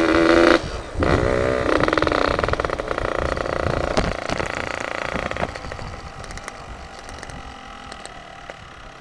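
Yamaha RX-King two-stroke motorcycle running loud through an aftermarket 'setengah dewa' open exhaust, revving hard in the first seconds with a short break just before a second in, then fading away steadily over the last few seconds.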